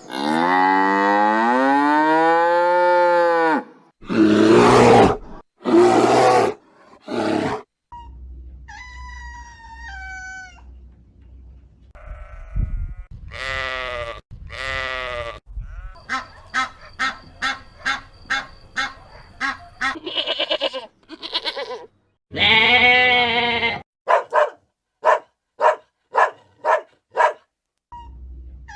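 Different farm animal calls one after another: a long pitched call over the first three seconds or so, several short rough bursts, then high calls that step down in pitch, and a run of short calls repeated about two or three times a second in the second half.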